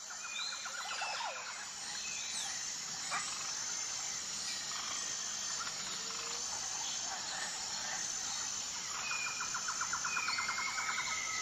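Outdoor nature ambience: birds chirping and insects calling over a steady hiss, with a rapid trill at the start and again near the end.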